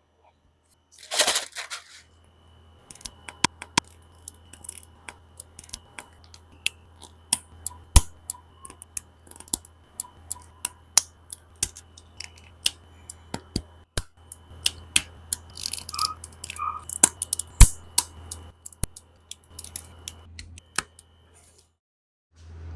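Plastic parts of a Master Grade Freedom Gundam model kit being handled and fitted by hand. A short rustle comes about a second in, then a long run of sharp, irregular plastic clicks and snaps, with a few rustling bursts past the middle.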